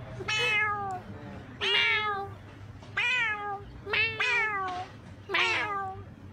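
Domestic cat meowing five times in a row, each meow a short cry that falls in pitch, about one every second or so.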